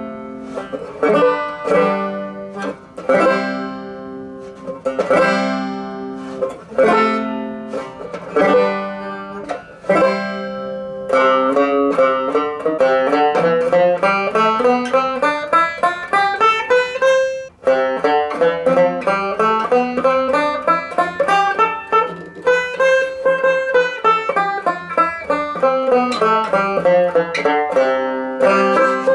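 Vintage banjo being played. It starts with ringing chords strummed about once a second, then about eleven seconds in switches to fast picked runs that climb and fall up and down the scale.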